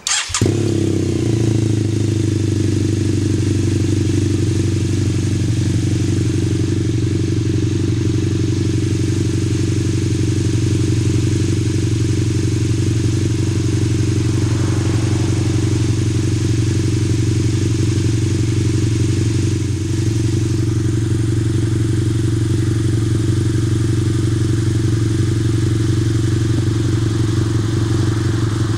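BMW F650GS 798cc parallel-twin motorcycle engine breathing through a Two Brothers slip-on exhaust, catching as it is started and then idling steadily.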